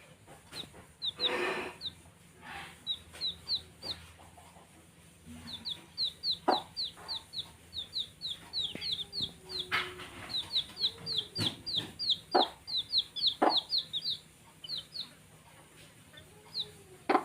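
Baby chicks peeping: short, high, downward-sliding chirps in quick runs, busiest in the middle, with a few sharp taps among them.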